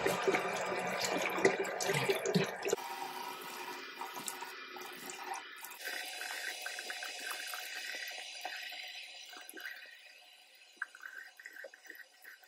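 Bathroom sink tap running while water is splashed onto the face to rinse off a dried face mask. The water is loud for the first few seconds, then turns to quieter splashing and trickling that fades, with a few drips near the end.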